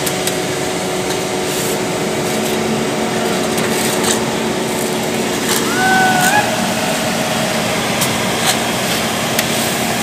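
Engine of an asphalt paver running steadily, with rakes and brooms scraping and ticking over freshly laid bitumen mix. A brief wavering call rises and falls about six seconds in.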